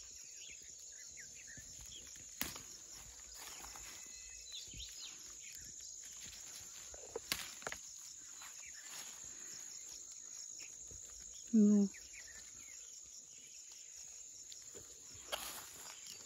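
Steady high-pitched drone of insects in the garden vegetation, with rustling leaves and a few sharp snaps as squash shoots and chillies are picked by hand. A brief voice sound cuts in about two-thirds of the way through.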